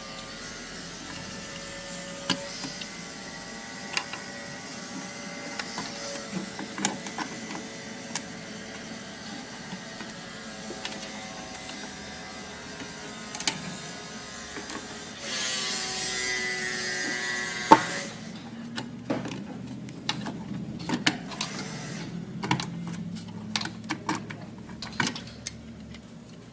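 A steady small-motor whine with scattered clicks and taps. The whine swells into a louder hiss near the end and then stops, leaving only intermittent clicks and knocks of computer parts being handled.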